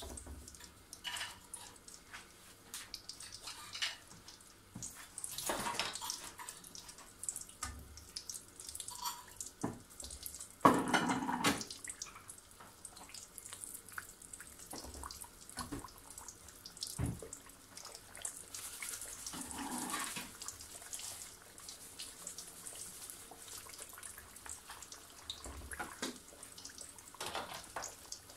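Pastry turnovers frying in hot oil in a pan, a steady sizzle with many small crackling pops. A slotted spoon turns them in the pan, with a louder clatter and spatter about eleven seconds in.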